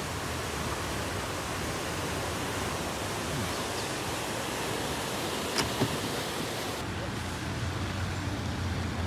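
Muddy flash-flood water rushing and churning in a swollen river channel, a steady, full noise of water. A short sharp tap about five and a half seconds in, and the higher hiss thins out about seven seconds in.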